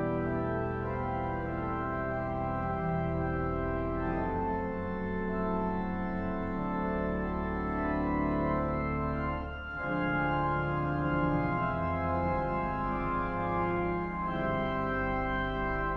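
Church organ playing held chords, the harmony changing about four seconds in, with a brief break between phrases just before the tenth second.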